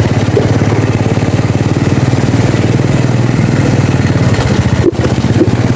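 Small engine running steadily close by, a constant low hum with a brief dip about five seconds in.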